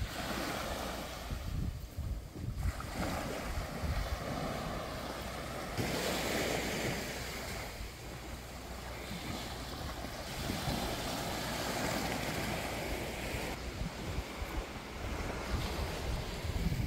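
Small sea waves washing onto a sandy beach, swelling and fading every few seconds, with wind rumbling on the microphone.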